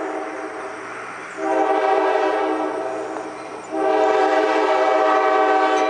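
Diesel locomotive air horn sounding in blasts for a grade crossing. One blast fades out, a second starts about a second and a half in, and a longer third starts just under four seconds in.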